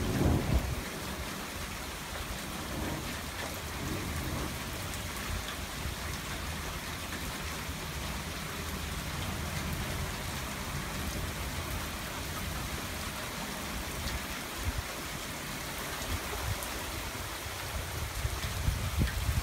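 Steady heavy rain from a squall-line thunderstorm falling on a sidewalk, plants and mulch, with a brief low rumble about half a second in and low rumbling building near the end.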